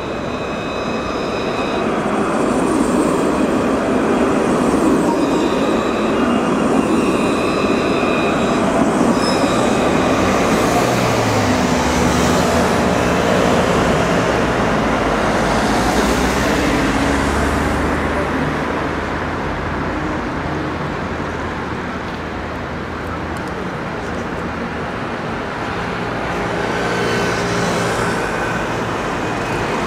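Alstom Citadis electric street trams running past on their tracks, over steady city road traffic. High, steady whining tones sound in the first several seconds.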